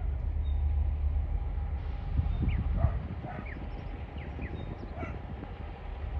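Distant diesel locomotives of an approaching coal train, a steady low rumble that eases after about three seconds, with a scattering of short high animal calls over it.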